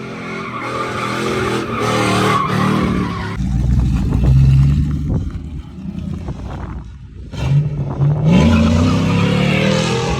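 Chevy Silverado pickup being drifted: its engine revving hard and rising and falling while the rear tyres skid and squeal. The revs drop off about two-thirds of the way through, then climb again.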